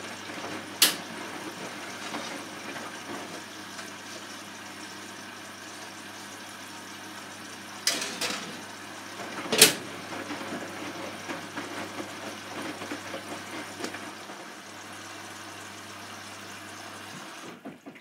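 Hotpoint front-loading washing machine tumbling wet laundry through water in the drum: steady sloshing over a low motor hum, with a few sharp knocks, the loudest about ten seconds in. The drum goes quiet just before the end.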